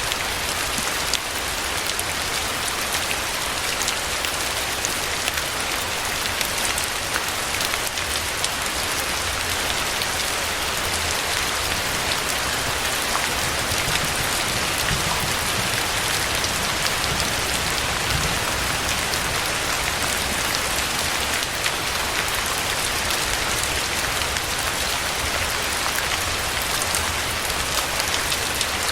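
Steady rain falling on a surface, a dense even hiss with many fine drop ticks.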